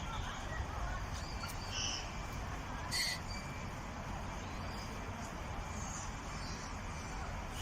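A few short, high-pitched animal chirps over a steady background hiss, with one sharp click about three seconds in.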